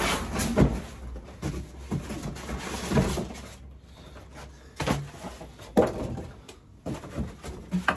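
Cardboard box and polystyrene packing being handled as a boxed pressure washer is unpacked: rustling and scraping, with a few separate knocks and thumps.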